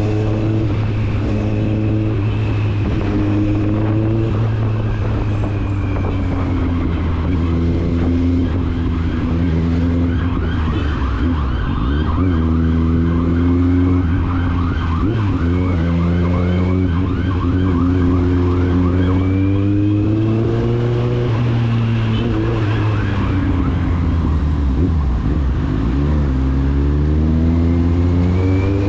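Kawasaki Z750's inline four-cylinder engine and exhaust under way. The revs climb in stepped rises with short dips between them, as with upshifts, then fall back, and this happens several times over.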